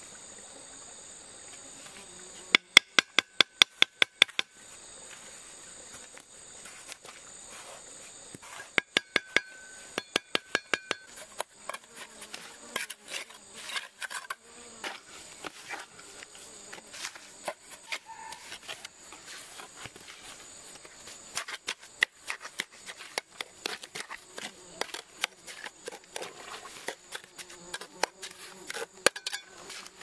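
Steady high-pitched insect buzzing, broken by sharp, ringing taps: a quick run of about ten taps a few seconds in, another run around nine to eleven seconds in, then scattered single taps through the rest.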